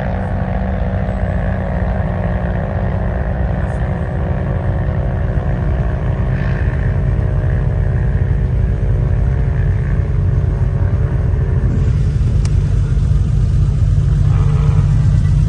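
Sand car engine running with a steady low rumble, growing a little louder in the last few seconds.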